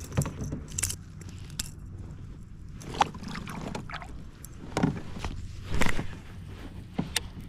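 Scattered knocks, clicks and light rattles from handling gear on a fishing kayak, with the loudest about three, five and six seconds in, over a low steady rumble.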